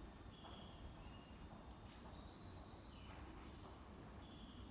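Near silence, with faint high chirping tones in short stepping groups that repeat every two to three seconds over a low hum of room noise.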